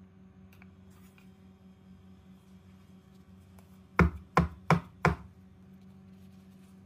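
A metal tube cake pan full of batter knocked down on the counter four times in quick succession, the usual way to settle the batter and knock out air bubbles before baking.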